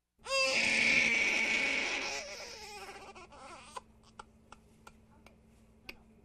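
A baby crying: one long cry that starts suddenly and trails off over about three seconds, followed by a few faint clicks.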